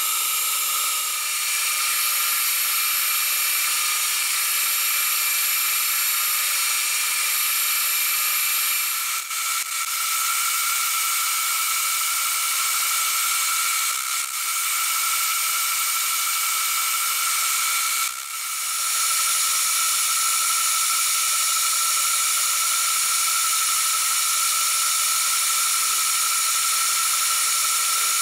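Vertical milling machine running steadily as a small end mill cuts the teeth of a metal sprocket blank, a hiss with a steady tone over it. The sound dips briefly three times, about a third, half and two-thirds of the way through.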